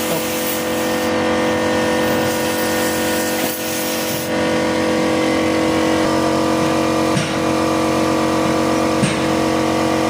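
Car engine running at a steady speed, with a couple of faint ticks near the end.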